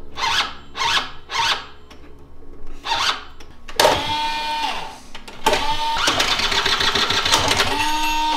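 Genuine Buddy scooter being cranked over by its starter: several short tries, then two longer cranks of a second or more with a whine that shifts in pitch.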